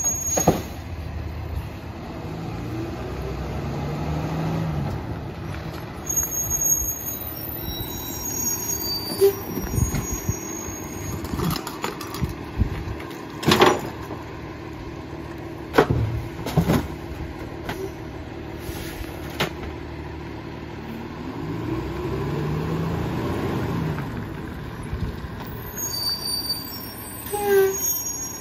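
Freightliner garbage truck with a Heil PT1000 rear-loader body running, its engine speeding up and settling back twice, about three seconds in and again past twenty seconds, as the packer cycles the bags. Several sharp bangs and clanks sound in between, the loudest about halfway through.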